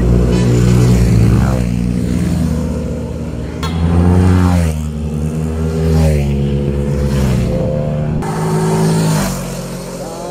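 Several motorcycles passing at speed one after another, each engine note swelling as it nears and dropping in pitch as it goes by. The loudest pass comes about four seconds in.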